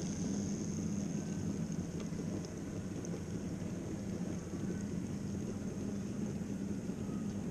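N-scale model train running past close by: a steady hum and rolling rattle of its motor and small wheels on the rails.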